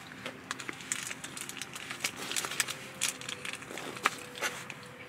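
Crunchy snack being bitten and chewed close to the microphone: irregular crisp crunches and crackles.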